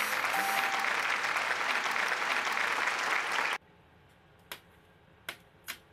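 Applause sound effect, a dense clapping that cuts off suddenly about three and a half seconds in. It is followed by a few faint sharp clicks as the cake is cut with a knife.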